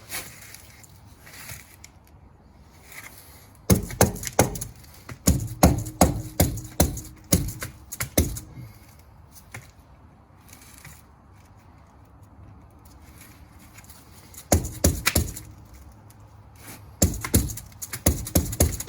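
A light hammer strikes up on the steering knuckle's spindle in bursts of quick, sharp blows, driving the knuckle up into the strut clamp. There is a long run of strikes, a short pause, a few more blows, then another run near the end.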